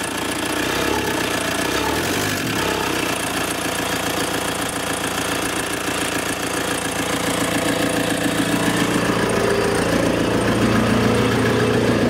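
Freshly installed VW AHU 1.9 TDI diesel engine in a T25 camper running and being revved for the first time; the revs and loudness climb gradually over the last few seconds.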